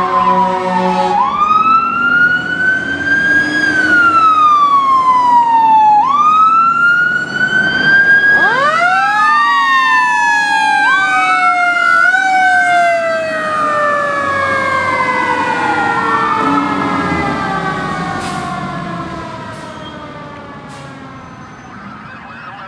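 Fire engine sirens wailing, each sweep rising and then falling in pitch over a few seconds, with a second siren overlapping the first about a third of the way in. The sirens fade toward the end as the engines pass.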